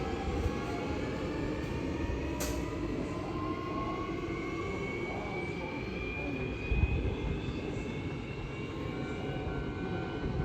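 Hankyu electric train pulling away, its traction motors whining in slowly rising tones as it gathers speed over a low rumble of wheels on rail. A short low thump comes about seven seconds in.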